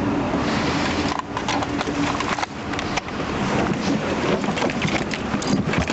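A struggle in a car's back seat: a rapid, irregular run of knocks, bumps and rustling from about a second in, over steady background noise.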